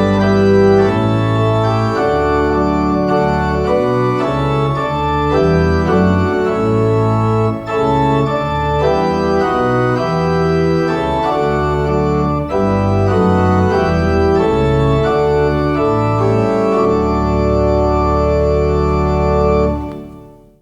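Organ playing a hymn tune in held chords over a deep bass line, closing on a long final chord that dies away near the end.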